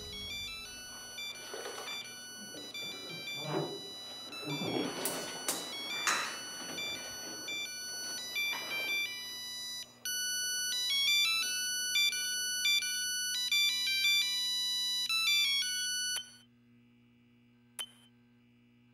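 A mobile phone's polyphonic ringtone melody playing, with water splashing in a bathtub in the first half. About ten seconds in the ringtone becomes louder and clearer, then cuts off suddenly about sixteen seconds in, leaving near silence with a single click.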